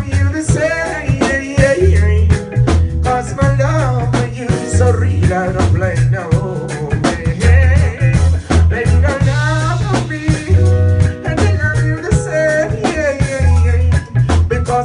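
Live reggae band playing: a deep bass line in repeating phrases, drum kit and electric guitar, with a male vocalist singing over them.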